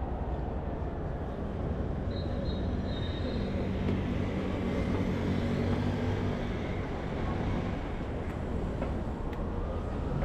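City street traffic: a steady rumble of vehicles, deepening and swelling in the middle.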